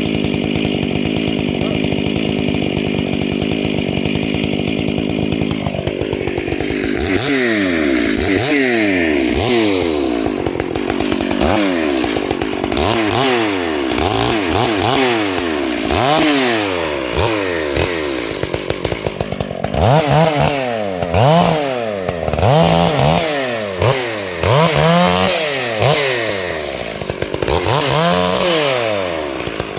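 Stihl MS 461 two-stroke chainsaw running steadily, then from about seven seconds in revved up and down over and over, roughly once a second, as it warms up after a cold start.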